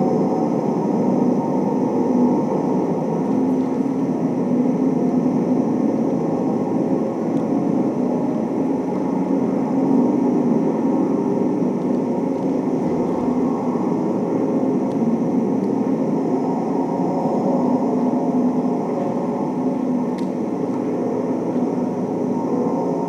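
Steady, dense droning noise from a contemporary dance piece's sound score, machine-like with no beat, melody or clear hits.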